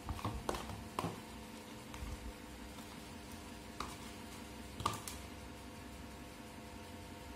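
Metal spoon scooping whipped dalgona coffee foam out of a glass bowl: a few light clicks and taps of the spoon against the bowl, several in the first second and single ones about four and five seconds in. A steady faint hum runs underneath.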